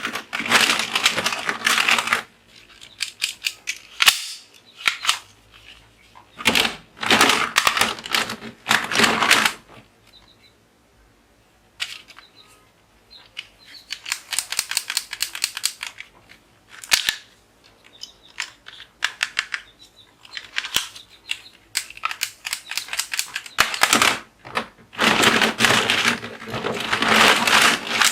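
Toy pistols firing: repeated bursts of rapid, crackling shot sounds, each one to three seconds long, with single sharp clicks between the bursts.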